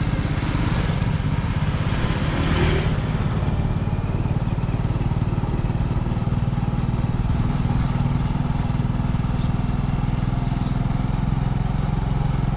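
Small motorbike engine running steadily on the move, with a brief rush of noise during the first few seconds.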